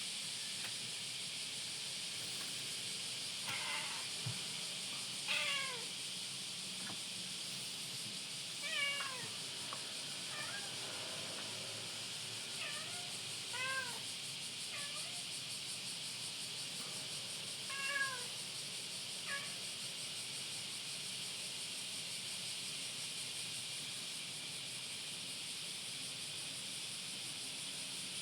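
An animal giving short pitched cries, about eight of them, each a brief sliding call, with the last near two-thirds of the way through. A steady background hiss runs under them.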